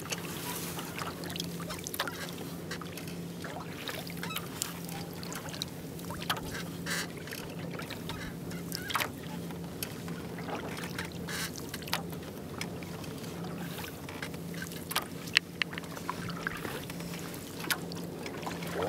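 Double-bladed kayak paddle strokes in calm water: blades dipping and dripping, with frequent small clicks and knocks, over a steady low hum.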